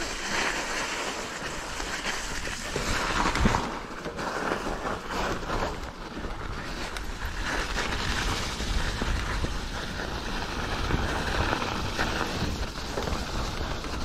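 Mountain bike riding down a snowy dirt singletrack: steady tyre and bike rattle over the rough ground, mixed with wind buffeting the microphone, with one louder knock about three and a half seconds in.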